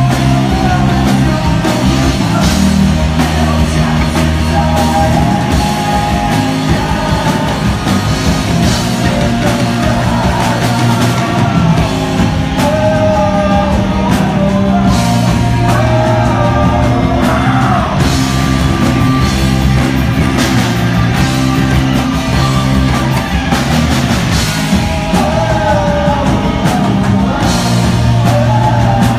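Live rock band playing: electric guitar, bass guitar and drum kit, with a sung lead vocal over them. The music is loud and continuous, with no breaks.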